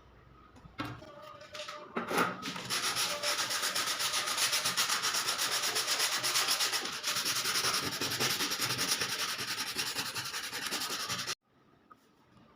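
Abrasive sanding on the steel of a katana blade: a steady, rapid rasping that starts about two seconds in and cuts off suddenly near the end.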